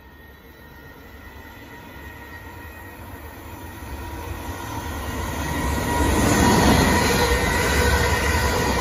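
South Western Railway Class 450 Desiro electric multiple unit approaching at speed and passing close by: the rumble and rush of its wheels on the rails grow steadily louder, peaking about six to seven seconds in as the train goes past.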